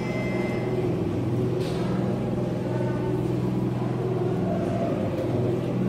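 A steady low mechanical hum of several even tones, with a faint brief rustle about a second and a half in.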